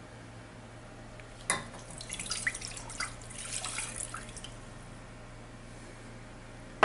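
Whole milk being poured into a saucepan. A knock about a second and a half in, then splashing and trickling for about three seconds before it tails off.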